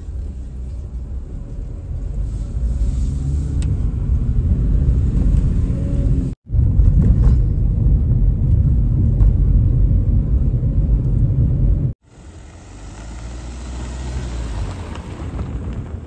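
Car driving, heard from inside the cabin: a steady low rumble of engine and road noise. It cuts off abruptly twice, about six and twelve seconds in, and in the last few seconds a hiss rises over a lighter rumble.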